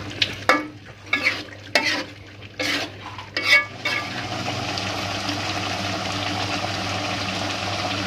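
Metal spatula scraping and stirring jengkol stew in a wok, a handful of sharp scrapes in the first four seconds. After that the stew simmers and sizzles steadily on the gas flame.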